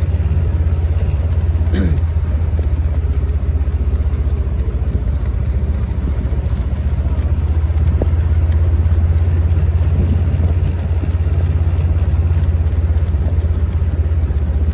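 Engine of a slow-moving vehicle running steadily, a loud low hum with no change in pace.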